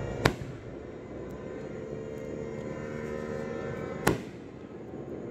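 Two sharp bangs of aerial firework shells bursting, the first just after the start and the second about four seconds later, each trailing off briefly. A steady drone with held tones runs underneath.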